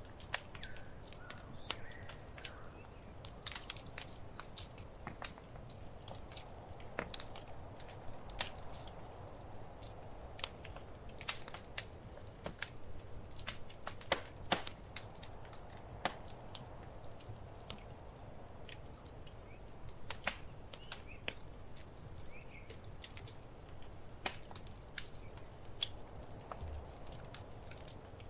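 Wood fire crackling in a fireplace: irregular sharp pops and snaps, a few louder ones now and then, over a steady low hiss and rumble of the flames.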